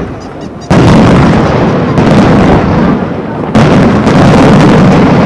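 Aerial fireworks shells bursting in a dense, near-continuous barrage of booms and bangs. Fresh salvos cut in sharply under a second in and again about three and a half seconds in.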